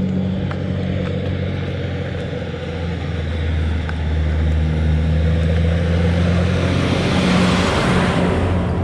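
Heavy skip-container lorry's diesel engine approaching and passing close by. Its low engine hum grows louder, with a rush of engine and tyre noise peaking about eight seconds in as it goes past.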